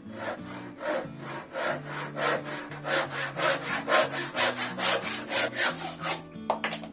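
Handsaw crosscutting a pallet board by hand, with quick, even back-and-forth strokes about three a second, each a rasping stroke through the wood.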